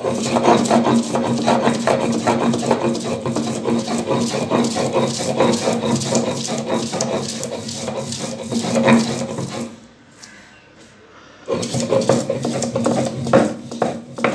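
Stone roller of a shil-nora rubbed back and forth over wet coriander leaves on a stone grinding slab: stone on stone with a rapid run of rasping strokes, grinding the raw leaves to a paste. The grinding pauses briefly about ten seconds in, then starts again.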